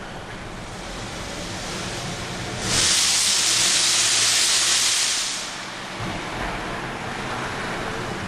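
1998 Mercedes-Benz E320's V6 running with its exhaust hissing out of a hole pierced in the pipe to bypass a disintegrated, clogged catalytic converter. The hiss grows much louder about three seconds in and eases back after about five and a half seconds.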